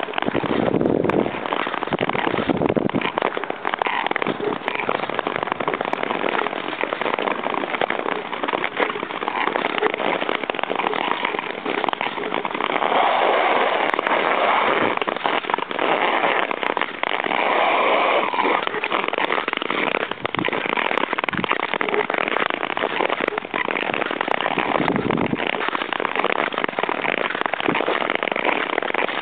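Long-distance touring skates gliding over lake ice: a continuous scraping hiss of the blades, full of dense crackling clicks.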